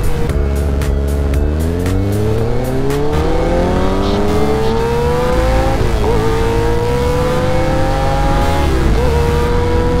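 Kawasaki ZX-6R's inline-four engine pulling hard under acceleration, its pitch rising steadily, with two quick upshifts about six and nine seconds in, each a brief dip before the revs climb again.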